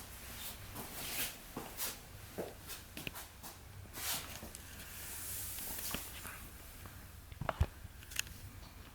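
Irregular clicks, taps and rustles of objects being handled, with a soft rustling hiss in the middle and a heavier knock, struck twice, about seven and a half seconds in.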